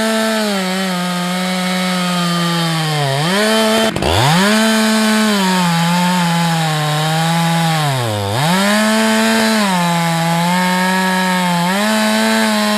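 Two-stroke chainsaw at high throttle, noodling (ripping a log lengthwise along the grain). Its engine note sags as the chain bites in and rises again as it frees, with two deeper drops about three and eight seconds in and a brief break around four seconds.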